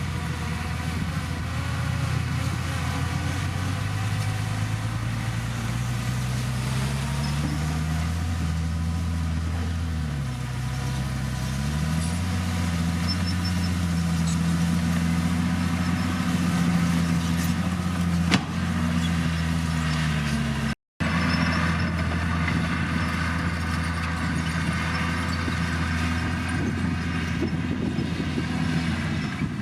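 Diesel engine of a Komatsu D51PX bulldozer working steadily, its pitch rising and falling several times as the revs change. A single sharp click comes about two-thirds of the way through, and the sound cuts out for an instant shortly after.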